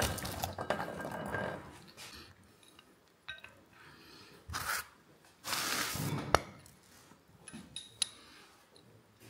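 Hand work on a brake caliper: metal tools and brake parts clinking and scraping in short, scattered bursts with quiet gaps between, as the caliper's piston dust boot is fitted.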